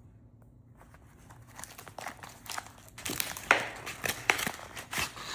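Crinkling and rustling as a portable door lock and its drawstring bag are handled, with several sharp clicks. It starts about a second and a half in and is loudest around the middle.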